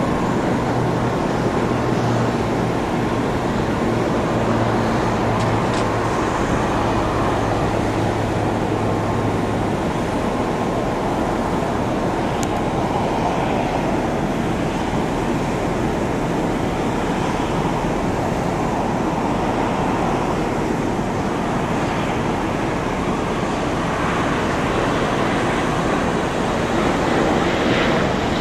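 Jet engines of a Boeing 787-9 airliner on final approach and flare, a steady broad rumble that swells slightly near the end as the aircraft comes low over the runway.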